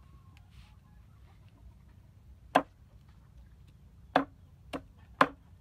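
Meat cleaver chopping pieces of raw chicken on a wooden chopping board. There are four sharp chops: the first about two and a half seconds in, then three more in quick succession near the end, the third of them lighter.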